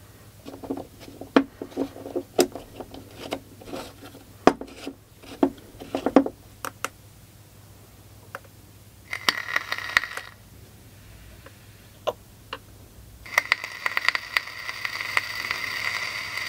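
Plastic and metal clicks and knocks as a rebuildable tank is pressed into a box mod. Then two stretches of hiss with small crackling pops, a short one about nine seconds in and a longer one from about thirteen seconds: the coil sizzling as the mod fires it.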